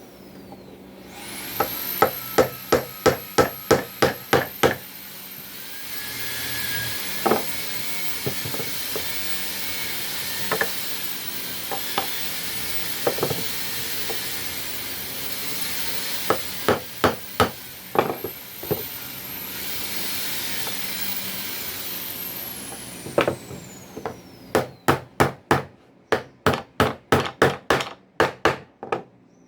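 Hammer striking wood in quick runs of sharp, even blows, about three to four a second, with a longer, faster run near the end. A steady hiss fills the pauses between runs.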